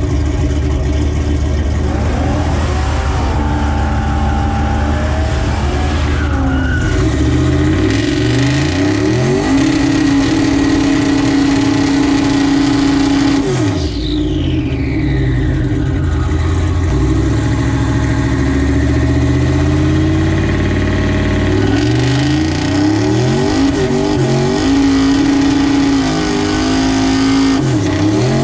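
LS V8-swapped Ford Ranger pickup doing a burnout, its rear tyres spinning to heat them before a drag launch. The engine starts low, revs climb after several seconds and are then held high, with short dips and re-rises about halfway through and near the end.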